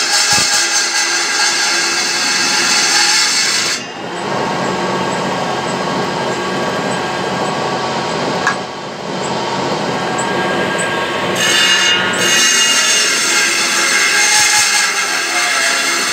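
Table saw's circular blade running and cutting lengthwise through a wooden spoon blank, a loud steady whine with a rasping cut. About four seconds in the high rasp drops away while the blade spins free for several seconds, and it cuts again from about eleven seconds in.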